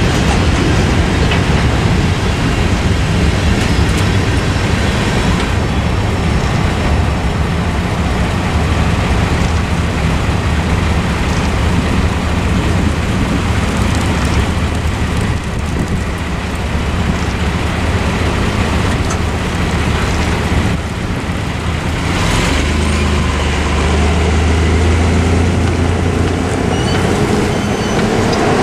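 Tail end of a freight train rolling through the crossing at first, then road trucks and cars idling while they wait at the crossing. About 22 seconds in, a truck engine's low rumble swells as the gates lift and vehicles pull away over the tracks.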